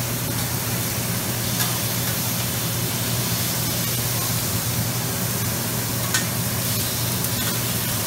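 Shrimp and sliced beef sizzling steadily on a Mongolian-barbecue flat-top griddle, with a couple of short clinks of metal spatulas against the griddle. A steady low hum runs underneath.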